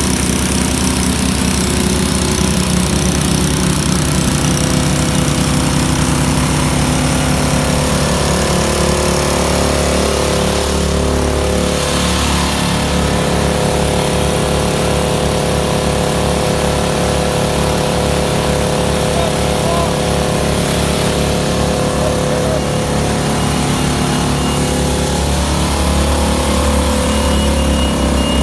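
Small petrol-engine water pumps running steadily at a constant speed, pumping floodwater out of a sunken narrowboat.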